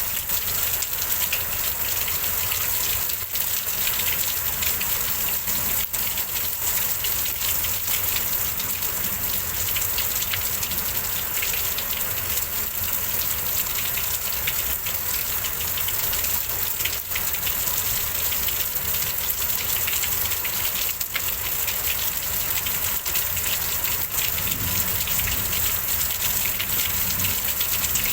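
Rain pouring steadily in a windy rainstorm, an even, unbroken hiss of water.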